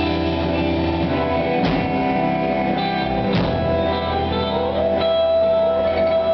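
Live rock band playing: ringing electric guitar chords with drum kit and cymbal hits, and a long steady high guitar note held from about four and a half seconds in.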